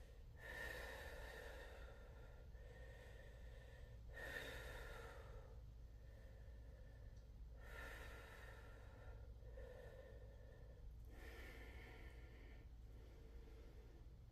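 A woman's faint, slow breathing while she holds a strength pose: audible inhales and exhales in an even rhythm, about four full breaths, one every three to four seconds.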